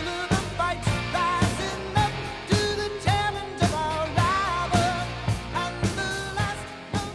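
Background pop song with a singer over a steady drum beat of about two hits a second, beginning to fade out near the end.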